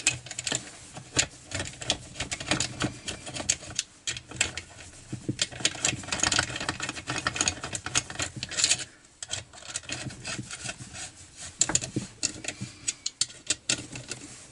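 8 mm nut driver turning the muffler bolts on a Partner 350 chainsaw: many irregular metal clicks and scrapes of the tool in the bolt heads, with small knocks of tool and parts.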